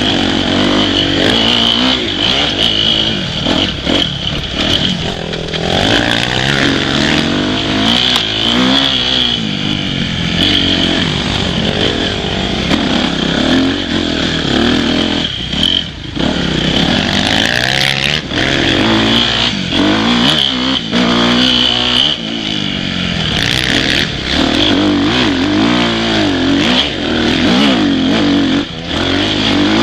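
Dirt bike engine being ridden on a rough trail, its pitch repeatedly rising and falling as the throttle is worked, with frequent short knocks and rattles from the bike over bumps.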